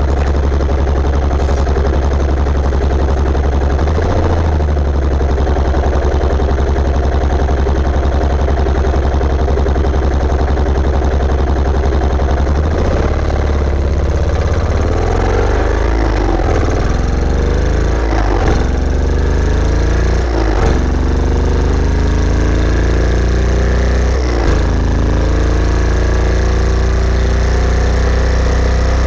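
Yamaha SR400's single-cylinder four-stroke engine running at a steady speed, then accelerating through the gears from a little under halfway in. Its pitch climbs after each of three short breaks for gear changes.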